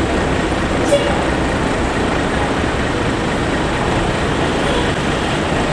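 Steady noise of passing road traffic and heavy vehicle engines, with one brief sharp blip about a second in.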